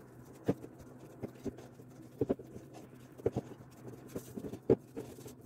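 Hands kneading soft dough in a glass bowl: irregular slaps and knocks, roughly one a second, as the dough is pressed and folded against the glass.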